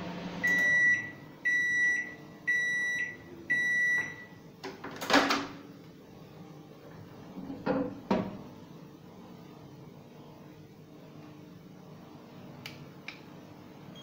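LG microwave oven's running hum cuts off as its timer reaches zero, and it sounds four end-of-cycle beeps about a second apart, the sign that the repaired oven has finished a heating cycle. A loud clunk follows as the door is opened, then a couple of knocks as the cup is lifted out.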